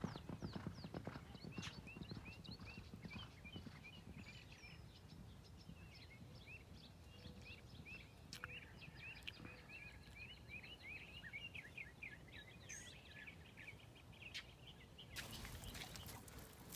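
Hoofbeats of galloping Thoroughbreds on a sand track, fading away over the first couple of seconds and leaving faint high chirping over a quiet field. Near the end a burst of rushing noise comes in.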